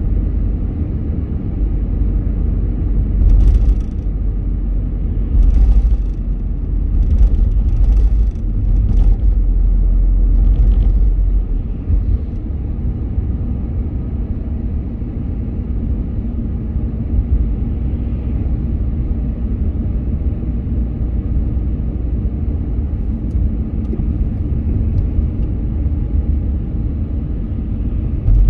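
Car driving on city streets: a steady low rumble of road and engine noise, with several brief knocks in the first ten seconds, easing off to a lighter rumble after about twelve seconds.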